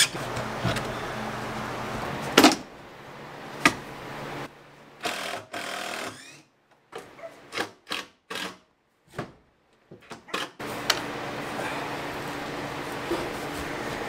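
Cordless DeWalt impact driver backing screws out of a plywood nesting box in several short bursts, with wooden knocks and scraping as the box is worked loose and pulled out.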